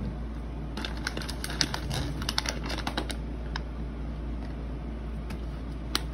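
Light clicks and taps on a tablet's touchscreen, in a quick irregular run over the first three seconds, then a few single clicks.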